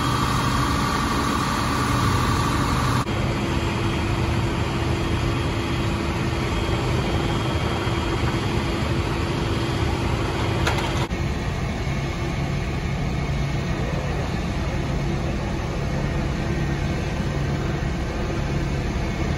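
Idling vehicle engines with a steady low hum over street noise. The background changes abruptly twice, about three and eleven seconds in, as the recording cuts between takes.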